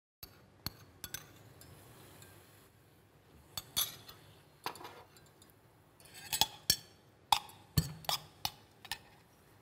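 Metal spoon clinking against a small ceramic bowl and a stainless steel mixing bowl while diced raw fish is spooned and stirred. The sharp, irregular clinks come thickest in the second half.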